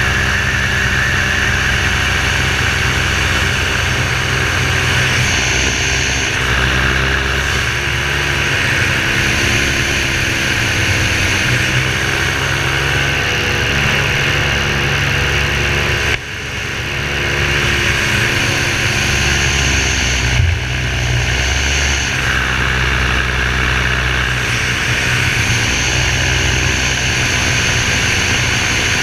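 Parajet V3 paramotor's two-stroke engine and propeller running steadily. About two-thirds of the way through the power dips briefly and builds back up.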